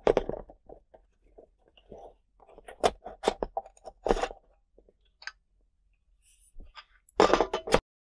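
Hitachi Xbox 360 DVD drive being taken apart by hand: scattered clicks, knocks and scrapes of its sheet-metal cover against the plastic drive frame, with a louder clatter about seven seconds in as the cover comes free.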